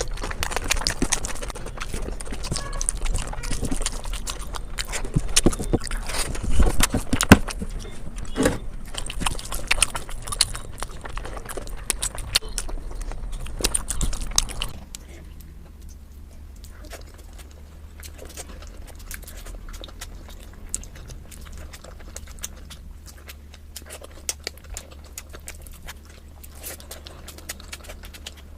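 Close-miked eating sounds: dense, irregular biting, chewing and crunching of food. About halfway through it cuts to a quieter stretch with a steady low hum under softer, sparser mouth clicks.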